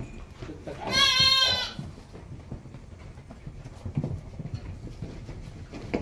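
A lamb bleating once, a single high call lasting under a second, about a second in.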